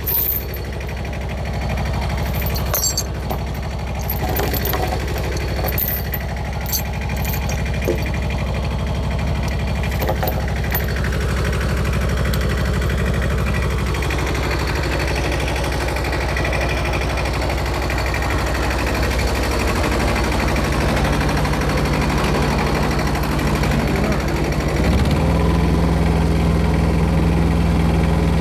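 An engine running steadily, with scattered knocks and clanks over the first ten seconds or so. About 25 seconds in, the engine note steps up and gets louder.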